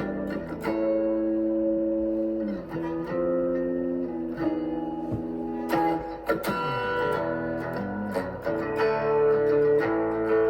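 Guitar being played: held notes and chords ringing for a second or two each, with a couple of notes sliding down in pitch.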